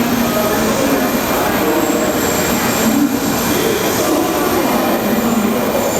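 Shinkansen train moving along the platform, a loud, steady rush of wheels and running gear.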